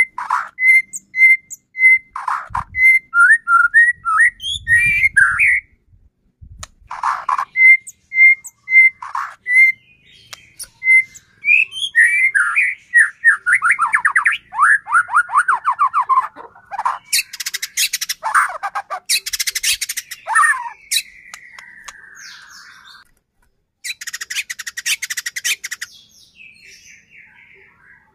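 White-rumped shama singing a loud, varied song: runs of clear repeated whistled notes, fast falling trills, and harsh buzzy crackling calls (kretekan).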